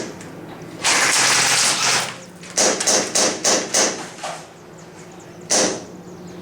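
Airsoft guns firing: a burst about a second long, then five quick separate shots or short bursts, and one more a little later.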